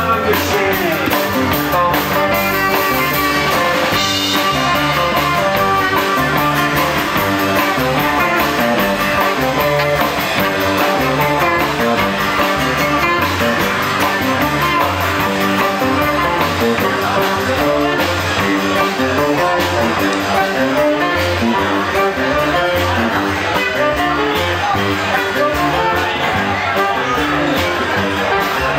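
Rockabilly band playing live: guitars, slapped upright bass, drums and saxophone in a steady rock and roll groove.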